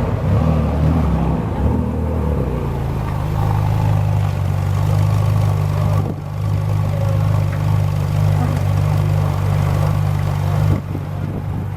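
Ferrari 458 Speciale's naturally aspirated V8 running. Its note wavers through the first couple of seconds, then holds steady; near the end it surges briefly and drops back to a quieter run.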